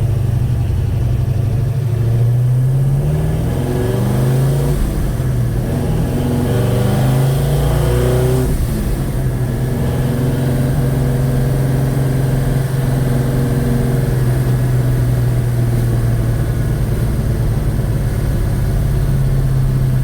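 Chevrolet 307 small-block V8 driving on the road. The revs climb in several steps over the first eight seconds or so, then settle to a steady cruise. The valve train is noisy, with a diesel-like clatter that was traced to mismatched valve springs and retainers.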